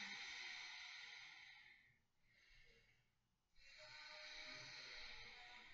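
Ujjayi breathing: a person breathing through the nose with the throat constricted, making a soft, throaty hiss. There are two long breaths: the first ends about two seconds in, and the second begins about three and a half seconds in.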